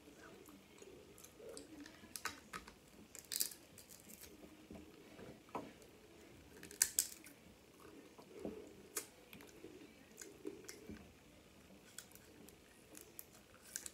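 Cooked snow crab leg shells being cracked and snapped apart by hand, giving a scatter of short sharp cracks, with faint sucking and chewing as the meat is pulled from the shell.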